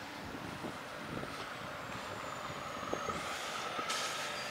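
Road and wind noise from travelling along an asphalt road, with scattered light rattles and a faint thin whine that comes in about halfway and grows, then a brief hiss near the end.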